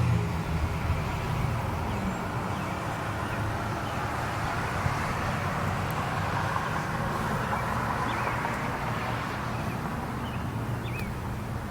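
Outdoor street traffic noise: a vehicle's low engine hum fades in the first second, leaving a steady wash of passing-traffic sound, with a few faint bird chirps near the end.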